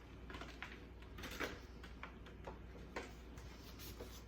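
Quiet handling noise: about ten faint, light ticks and rustles, scattered unevenly, as a cowboy hat and its packaging are handled.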